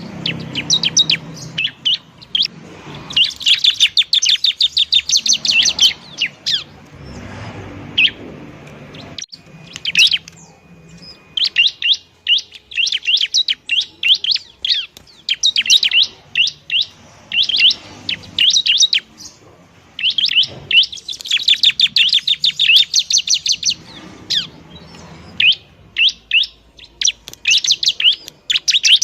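Bar-winged prinia (ciblek) singing in rapid runs of sharp, high chirps. Each run lasts a few seconds, and short pauses fall between them.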